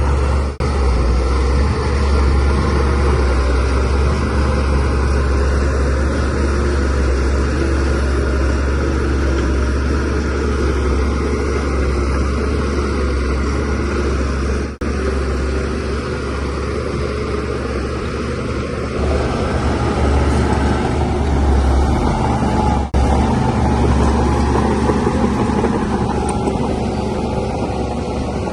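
DH17C3 bulldozer's diesel engine running steadily with a deep low rumble, broken by three very brief dropouts.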